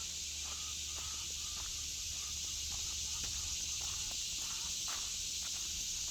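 Chickens clucking faintly in short, scattered calls over a steady high hiss, with a few light clicks among them.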